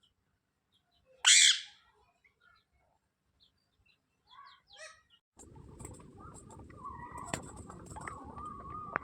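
A parrot gives one loud, harsh squawk a little over a second in, then a few soft short chirps. About halfway through, a steady background hum comes in, with scattered chirps and clicks over it.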